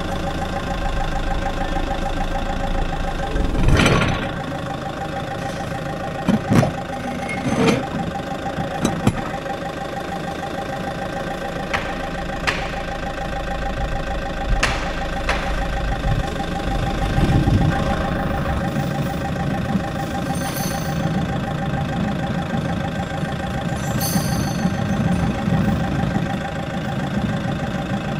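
Forklift engine running steadily with a constant whine as its fork moves a dozer track chain along the concrete. There are several sharp knocks in the first fifteen seconds, and the low engine note swells briefly a few times later on.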